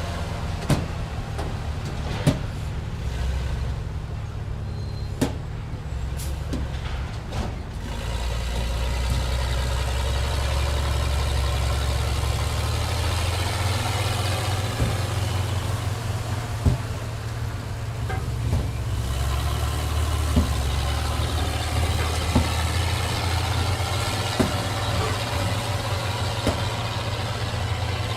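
Auto repair shop ambience: a steady low engine-like rumble with scattered sharp knocks and clicks from work going on. A fuller, noisier layer comes in about eight seconds in.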